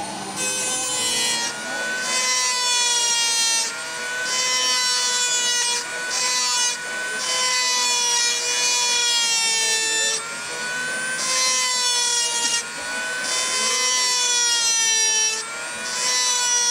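Handheld rotary tool running at a high whine, its bit grinding into the fiberglass hull bottom in strokes of a second or two with short breaks. The pitch wavers as the bit bites, while it routes out cracks along the hull for an epoxy repair.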